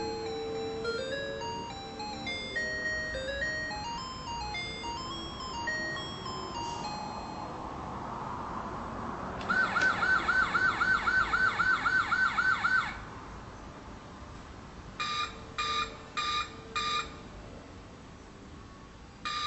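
Electronic sound effects from a ride-on toy car's speaker: a short beeping tune, then a rising engine-rev whoosh, then a fast warbling siren for about three seconds, which is the loudest part. Four short beeps follow near the end.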